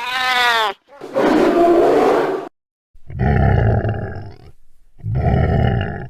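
Monster roar sound effects: a short, pitched cry that falls in pitch, followed by three deep, rough roars with short pauses between them.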